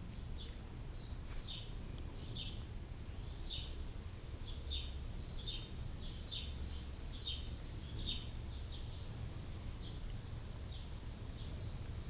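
A small bird chirping over and over, short high chirps at about two a second, over a steady low rumble.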